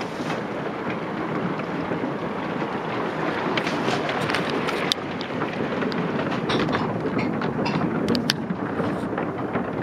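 Heavy fall of large hailstones drumming down, a dense steady clatter with sharper clicks of single stones striking, more of them from about three and a half seconds in.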